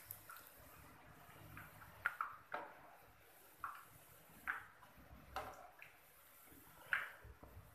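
Stainless-steel tongs clicking against a frying pan and fried bread patties as they are lifted out of hot oil, about six sharp taps over a faint sizzle of shallow-frying oil.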